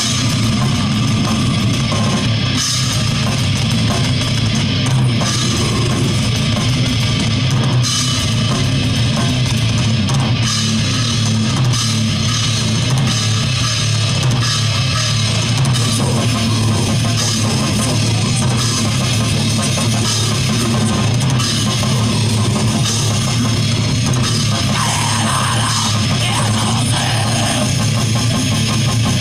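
Heavy rock band playing a song: guitar and drum kit, loud and continuous.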